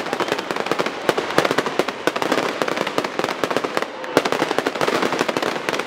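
Fireworks going off in a dense barrage: a rapid run of many small pops and bangs, with louder bangs about a second and a half in and about four seconds in.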